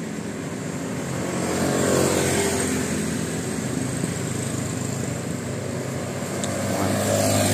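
A motor vehicle engine running, growing louder about two seconds in and again near the end.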